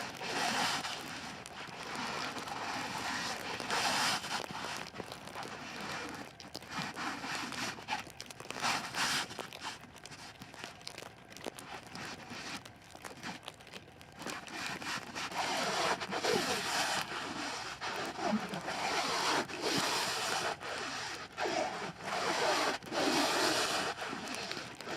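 Plastic stretch wrap being pulled off the roll and wound around a shelter frame, crackling and rustling in irregular bursts. It gets louder and busier about two-thirds of the way through.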